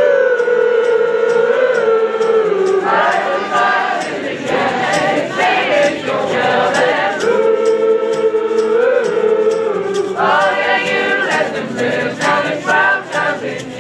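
A group of voices singing unaccompanied in close harmony, holding long notes that slide between pitches.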